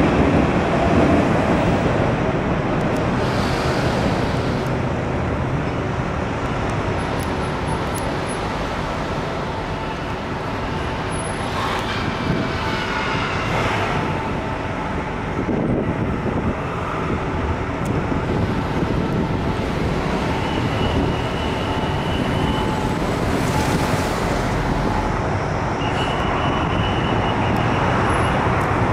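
City road traffic running steadily, with a faint high whine coming and going twice in the second half.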